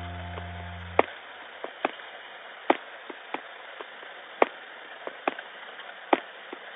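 A held musical chord fades out about a second in, leaving a light hiss with irregular sharp clicks and crackles, roughly one or two a second.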